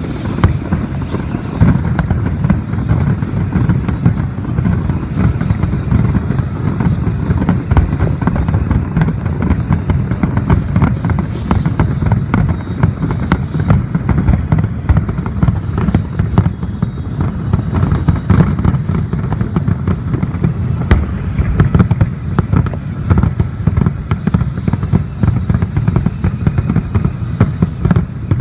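Aerial fireworks exploding in a dense, continuous barrage, many loud bangs a second overlapping with no pause.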